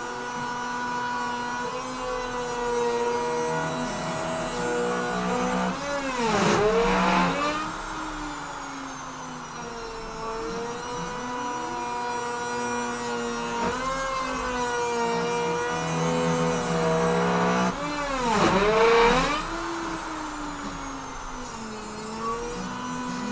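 CNC router carving wood: the Bauer trim router spindle whines steadily while the machine's motors hum in tones that shift as the gantry moves. Twice the pitch swoops down and back up, louder each time, about a third of the way in and again near the three-quarter mark.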